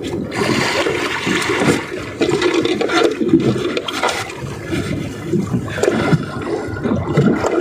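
Water rushing and splashing in irregular surges.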